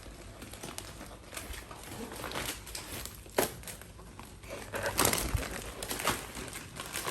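Gift wrapping paper being torn and crumpled as a present is unwrapped: scattered crinkling rustles, a sharp snap about three and a half seconds in, and busier crinkling near the end.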